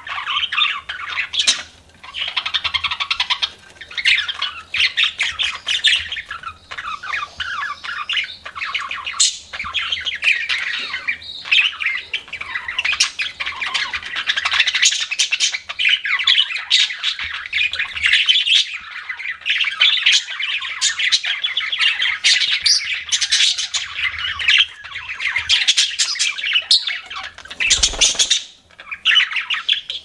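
Several budgerigars chattering and warbling together, a fast, unbroken run of chirps, squawks and trills with only brief pauses. There is a single low thump near the end.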